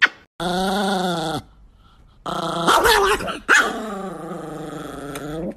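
Dog growling: a growl of about a second, then after a short pause a longer growl of about three seconds that slides down in pitch as it ends.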